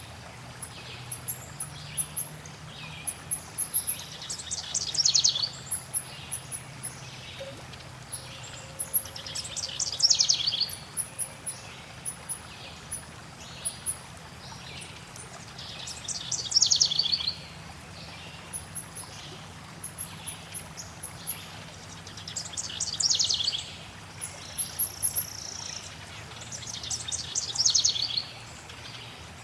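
Forest birds singing: one bird repeats a fast trill that falls in pitch, each about a second long, every five to six seconds, over many short, very high chirps from other birds. A steady soft hiss of flowing water runs underneath.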